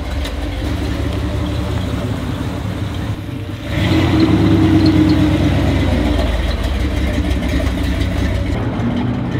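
Red OBS GMC pickup's engine running through a freshly fitted Corsa Bullet exhaust, first at a steady low rumble, then getting much louder under throttle about four seconds in as the truck pulls away, before easing off.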